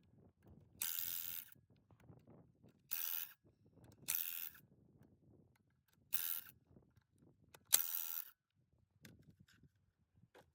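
Impact wrench run in five short bursts, each under a second and one to two seconds apart, spinning the lug nuts off a truck wheel, with faint handling sounds between the bursts.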